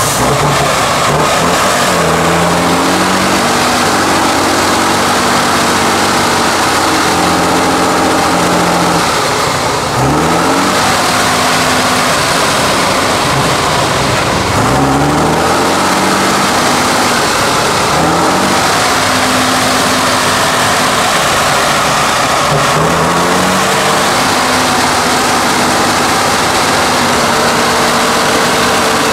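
Tatra 813 8x8 truck's diesel engine working hard under load as it pulls through deep mud, its revs shifting up and down. Four times the revs dip and then climb quickly again as the throttle is reopened.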